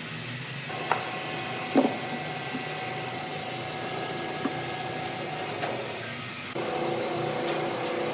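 Woodworking machinery running steadily with a humming whine and a few sharp knocks of wood. About six and a half seconds in the machine's tone drops and it grows a little louder.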